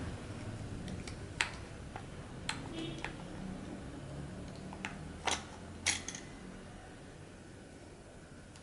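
Sharp clicks and taps of plastic and metal parts as the valve assembly of an Aqualung Legend Glacia regulator second stage is pressed and fitted into its plastic housing. The clicks are scattered, the loudest about a second and a half, five and six seconds in.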